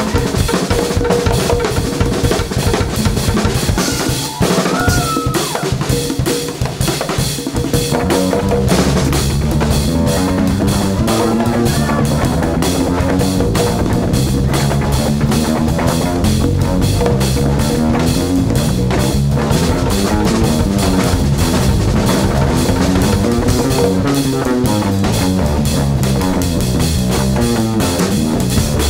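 Live jazz-funk band playing a groove on drum kit, congas and electric bass. The drums carry it at first, and a moving electric bass line comes in about eight seconds in.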